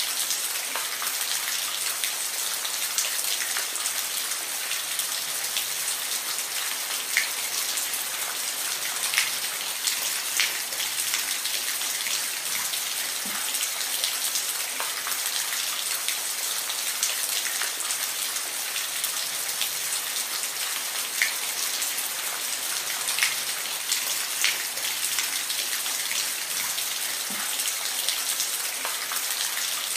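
Steady heavy rain: a constant hiss with individual drops ticking sharply here and there. No thunder is heard.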